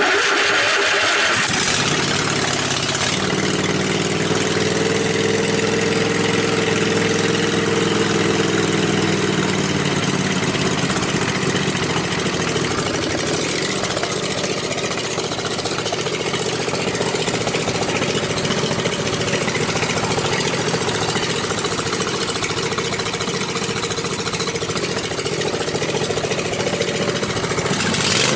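Riding mower engine, running with its blower housing off, starts at the push of a newly wired start button and catches almost at once. It then runs steadily at a fast idle, its pitch lifting slightly and settling back about ten seconds in. This is the first start after the rewiring and a carburetor cleaning.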